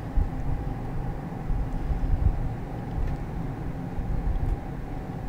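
Low, steady rumble of background noise without speech.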